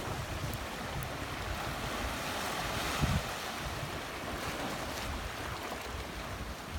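Seawater washing and lapping in a steady hiss, with wind buffeting the microphone and a small low bump about three seconds in.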